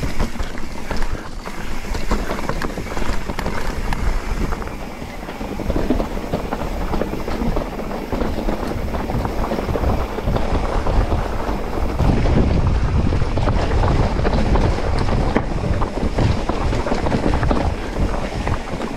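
Mountain bike riding over a rough trail: wind buffeting the microphone, with the tyres on loose ground and the bike rattling and knocking over rocks. The low rumble grows heavier about two-thirds of the way through.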